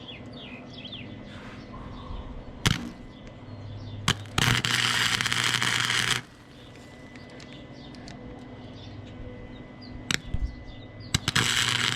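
Flux-core wire-feed welder laying a short bead of about two seconds, a steady crackling sizzle of the arc with a low hum under it, set off by sharp pops as the wire strikes the arc. A few brief arc strikes follow, and a second bead starts near the end.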